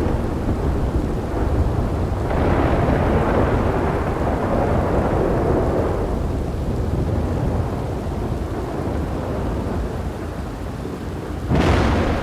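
Thunderstorm: steady rain with rolling thunder, a long rumble swelling and fading over a few seconds, then a sharp crack of thunder near the end.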